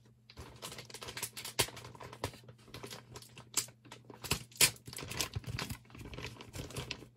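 Cardboard and styrofoam packing being handled: irregular rustling, scraping and clicking, with sharper knocks about one and a half seconds in and around four and a half seconds.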